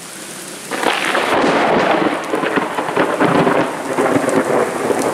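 A close thunderclap breaks suddenly about a second in and rolls on with a loud crackling rumble, over steady rain.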